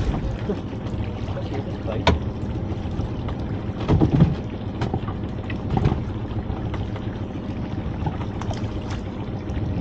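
Small fishing boat's engine idling steadily, with a few sharp knocks and thuds from lobster pots and bait being handled on board, about two seconds in, around four seconds (the loudest), and near six seconds.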